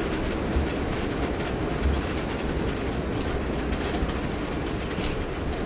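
Heavy rain coming down hard: a steady rushing noise with a low rumble underneath and a few faint ticks.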